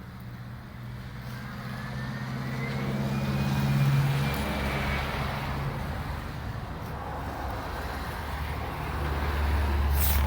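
Motor vehicles passing: an engine hum swells to a peak about four seconds in and fades, and another low rumble builds near the end.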